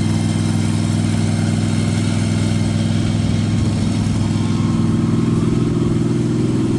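Engine of the machine moving the wheeled coop carrier, running steadily at a low, even pitch; its tone shifts a little about halfway through.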